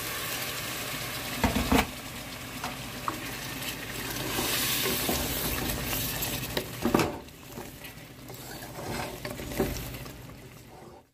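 Boiled eggs in spiced masala sizzling in a pan as a spatula stirs them, with a few knocks of the spatula against the pan. The sizzle dies down after about seven seconds.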